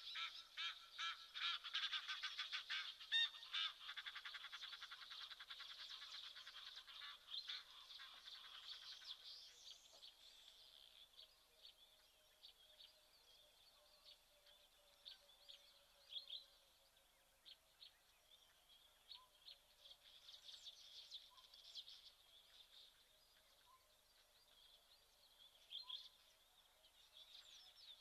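Crested guineafowl calling: a fast, rattling cackle of rapid notes that fades out about nine seconds in. After that only scattered short bird chirps remain.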